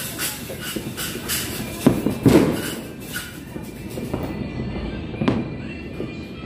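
Aerial firework shells bursting: a loud boom about two seconds in and a sharper bang about three seconds later, amid lighter distant pops.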